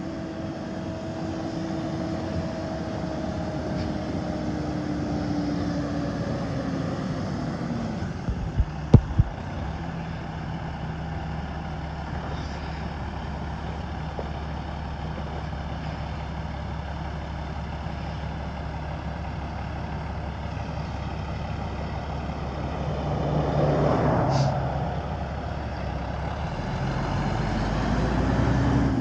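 Kenworth semi-truck's diesel engine running as the rig approaches and turns past. Its note falls over the first several seconds and then holds low and steady, with a few sharp clicks about nine seconds in and a brief louder rush of noise near the end.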